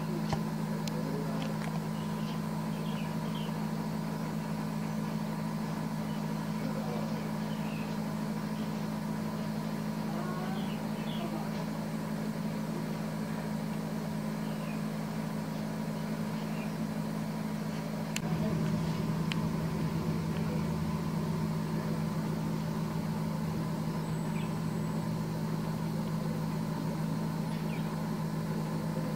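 A steady low machine hum, like an idling engine, with a thin higher tone above it; about two-thirds of the way through a deeper rumble joins in and the hum grows a little louder.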